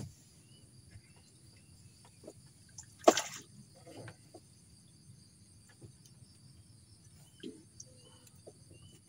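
A cast fishing rig splashing into the reservoir water about three seconds in, one short splash. Steady high chirring of insects runs underneath.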